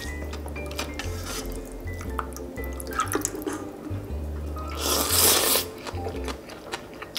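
Background music with a steady stepping bass line, over small clicks of eating. About five seconds in, a loud slurp of cold noodles and broth.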